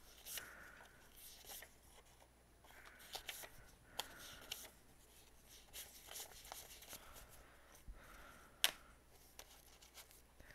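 Paper banknotes rustling and flicking as they are handled and counted by hand, with scattered soft clicks and one sharper click late on.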